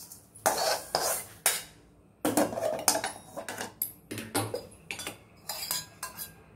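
Aluminium kadai and a perforated metal ladle clattering and scraping on a gas stove: a string of irregular metallic knocks as the pan is handled and set back on the burner grate.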